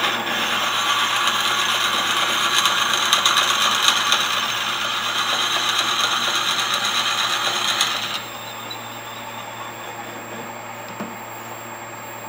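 Twist drill bit in a tailstock-mounted Jacobs chuck boring into the end grain of a wooden blank spinning on a wood lathe: a steady dense scraping cutting noise. The cutting stops about eight seconds in, leaving the lathe's steady motor hum.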